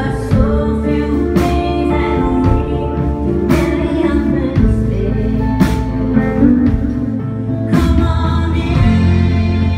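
Live rock band playing a song: electric guitars, bass guitar and drums, with a cymbal crash about every two seconds, and a woman singing lead.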